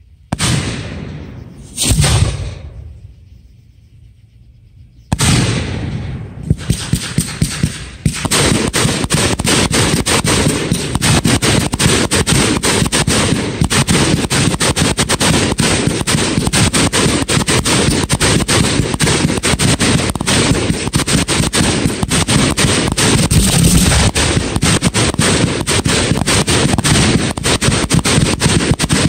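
Aerial fireworks going off. There are a few separate booms in the first five seconds, then a quick string of sharp reports, and from about eight seconds a dense, unbroken run of rapid bangs.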